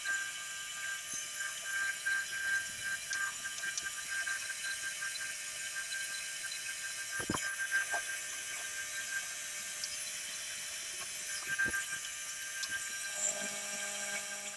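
Milling machine cutting a brass part with a carbide end mill: a steady high whine with a cutting tone that comes and goes, and a few sharp ticks.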